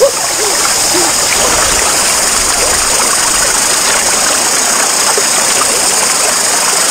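Running water of a stream, a steady rushing flow, with a few short faint chirps in the first second.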